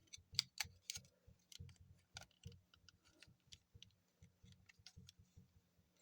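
Faint, irregular clicks and taps of plastic parts on a Transformers Masterpiece action figure being handled and folded into place, with a few louder clicks in the first second.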